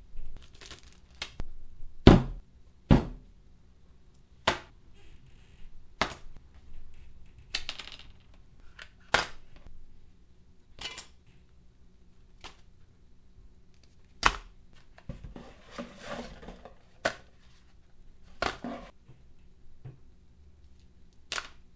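A series of separate knocks and clicks as hard items (a radio transmitter, plastic epoxy bottles, small servo boxes) are set down one at a time on a cutting mat, with a stretch of soft rustling of plastic parts bags about two-thirds through.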